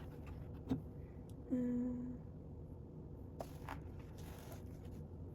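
Lego bricks being handled and fitted: a single sharp click less than a second in, then a few brief soft rustles and scrapes of plastic pieces later on.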